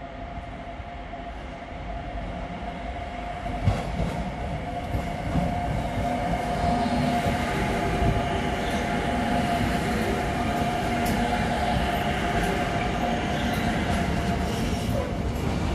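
Container freight train double-headed by two DB Class 185 electric locomotives passing close by. A steady rumble builds over the first several seconds, and a steady whine runs under it. Wheels click sharply over points and rail joints as the wagons roll past.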